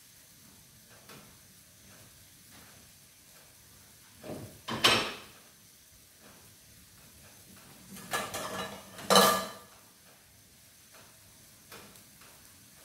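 Dishes and utensils clattering in a kitchen: one sharp clatter about four and a half seconds in, then a few ringing clinks around eight to nine seconds. Between them a faint steady hiss from the wok of squid stir-fry simmering on the cooktop.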